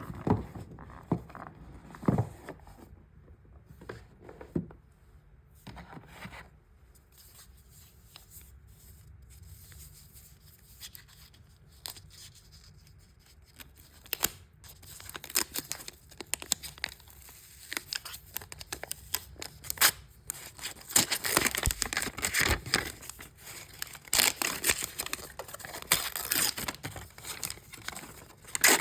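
Product packaging being opened and handled: tearing, crinkling and rustling with scattered sharp clicks and taps, sparse at first and busier and louder in the second half.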